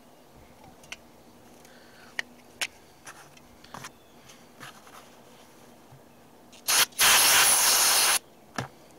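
Aerosol can of brake cleaner spraying onto a magnetic transmission drain plug: a short burst, then a steady hiss of about a second. A few light taps and clicks of handling come before it.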